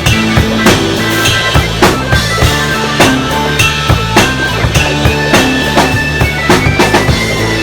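Drum kit played along to a pop song's recorded backing: a steady beat of bass drum and snare, with hits about every half second, over sustained bass and melody notes and no vocals.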